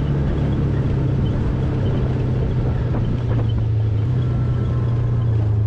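Off-road buggy's engine running steadily at an even pitch as it drives along a dirt trail.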